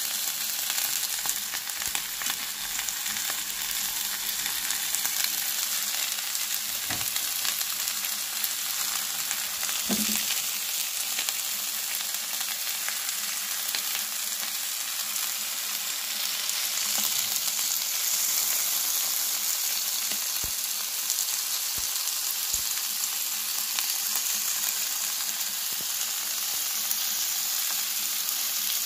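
Beef sirloin steak and vegetables sizzling in hot oil in a pan: a steady high hiss, with a few faint knocks.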